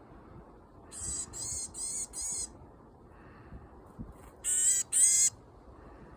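Varied tit giving its harsh, nasal calls: four in quick succession about a second in, then two louder ones about four and a half seconds in.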